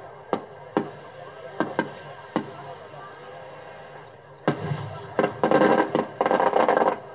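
Fireworks going off: several separate sharp bangs of bursting shells in the first couple of seconds, then a louder bang about four and a half seconds in, followed by a dense, fast barrage of bangs and crackling.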